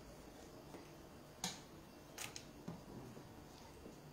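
A few faint clicks of a kitchen knife against a wooden cutting board as a skinned salmon fillet is sliced, with the two sharpest about a second and a half and two seconds in, over quiet room tone.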